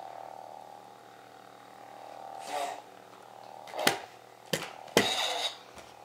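Toy lightsaber's steady electronic hum, with a few sudden loud bursts from about two and a half seconds in, the loudest about five seconds in.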